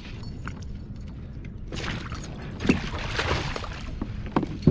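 A pike thrashing in a landing net at the side of a kayak, splashing the water for a couple of seconds, with a few hard knocks against the boat.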